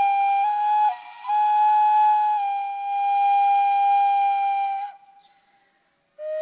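Flute playing a slow melody of held notes that step from one pitch to the next, with a long sustained note that fades out about five seconds in; after a brief pause the next phrase begins near the end.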